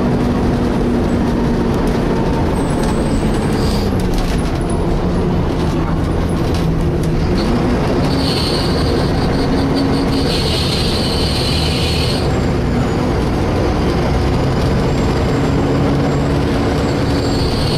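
Inside a Volvo B7TL double-decker bus under way: the engine and cooling fan run with a steady drone, the engine note falling about four seconds in and rising again near eight seconds. A high-pitched screech comes in for about four seconds from around eight seconds in, and again near the end.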